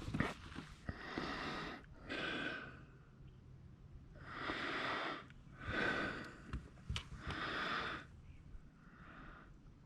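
A person breathing heavily close to the microphone: about six breaths in and out, with a single sharp click near the end.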